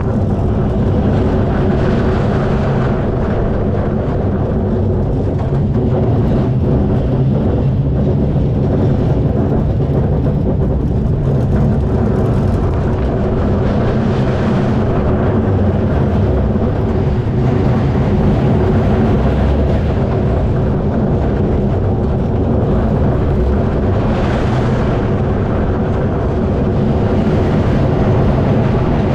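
Schwarzkopf Wildcat roller coaster car running along its steel track, a steady rumble of wheels on rails heard from the front seat, with a couple of brief hissier swells about halfway and near the end.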